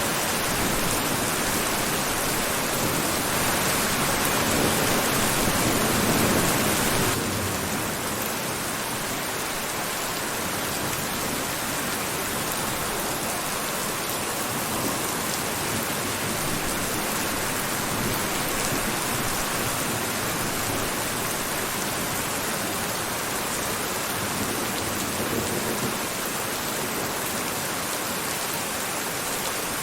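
Steady heavy rain falling, an even hiss of drops on surfaces. It is a little louder for the first several seconds, then drops abruptly to a slightly softer steady downpour.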